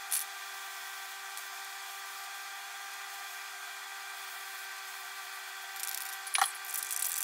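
Spray booth exhaust fan running with a steady hum of several even tones. Gloved hands rustle briefly at the start, and from about six seconds in there is handling noise: rubbing and clicks, with one sharp click.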